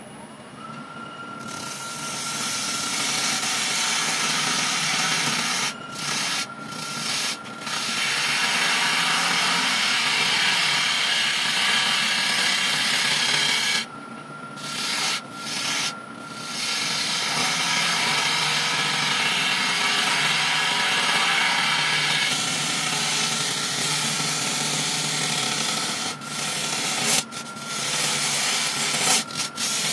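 A turning gouge cutting the outside of a large monkey puzzle tree blank spinning on a wood lathe: a steady rushing hiss of wood being shaved off. The hiss breaks off briefly several times as the tool is lifted, the longest break about halfway through, while a steady thin whine from the lathe carries on underneath.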